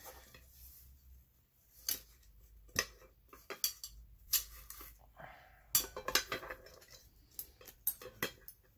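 Nested aluminium camp pots and pans and a stainless steel bowl clinking and knocking together as the set is handled and taken apart. There are scattered short, sharp clinks, thickest around the middle.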